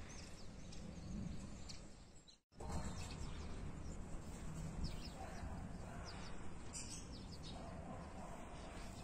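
Outdoor ambient noise with a low steady rumble and scattered short, high bird chirps. The sound cuts out completely for a moment about two and a half seconds in, then the same kind of ambience resumes.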